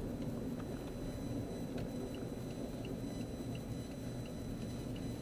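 Car cabin noise while driving: a steady low rumble of engine and tyres. From about two seconds in, the turn signal ticks faintly and evenly, roughly three times a second.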